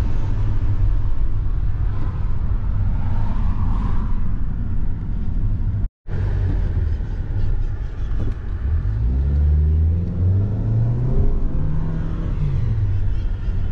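Car engine and road rumble while driving, with the sound cutting out for a moment about six seconds in. In the second half the engine pitch rises a few times as the car accelerates, then falls back.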